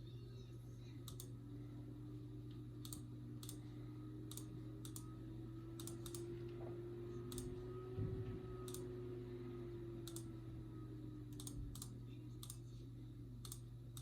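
Faint, irregular clicks about once or twice a second over a low steady hum, with a faint drawn-out tone that rises slightly toward the middle and then falls away.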